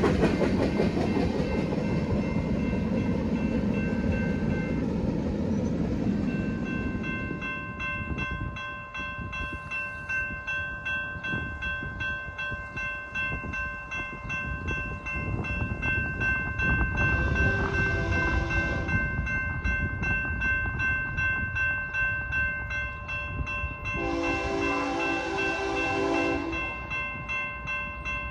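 A passing train's rumble fades over the first few seconds. Then a grade-crossing warning bell rings steadily, and an approaching freight locomotive's horn sounds twice, about 17 and 24 seconds in.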